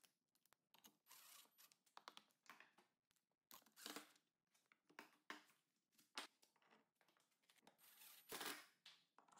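Very faint handling noise: scattered small clicks, taps and brief scrapes as parts of a shop-made geared vise are fitted together with a cordless driver. A few slightly louder scrapes come about one, four and eight seconds in.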